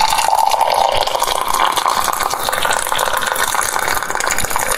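Coffee pouring in a steady stream into a porcelain cup, a continuous liquid splashing that starts abruptly.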